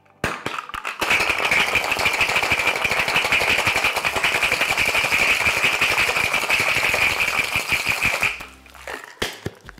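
Cube ice rattling hard inside a metal cocktail shaker, shaken fast and steadily for about seven seconds to chill a daiquiri. A few separate knocks of the tins come just before the shaking starts and a little after it stops.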